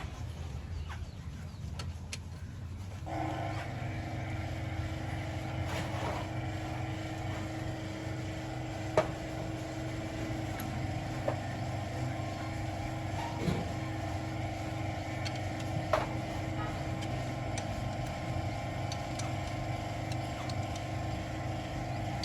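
Toyota Corolla GLi engine running at a steady idle, with a few sharp clicks. It is being listened to for its tappet and timing-chain noise after the chain adjuster was held in place with wire.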